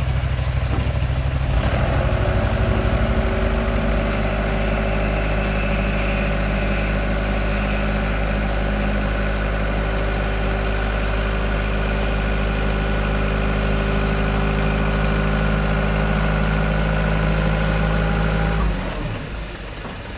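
Engine of an Iseki riding paddy-management machine running steadily. It speeds up about two seconds in and holds that speed, then drops away near the end.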